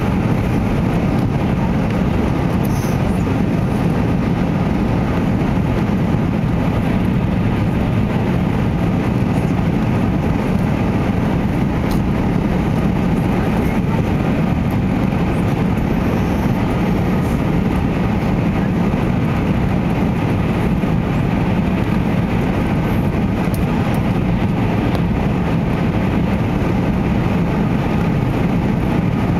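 Steady cabin drone of an Airbus A340-600's four Rolls-Royce Trent 500 engines and rushing airflow, heard inside the cabin as the airliner climbs out after take-off.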